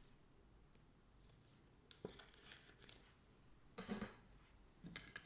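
Faint handling noise of trading cards and foil pack wrappers: a soft click about two seconds in, then brief rustles and light scrapes, the clearest just before four seconds.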